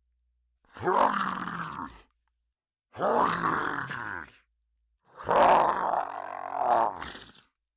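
Monster creature sound effect: three separate throaty groans with silence between them, each sliding down in pitch, the third the longest.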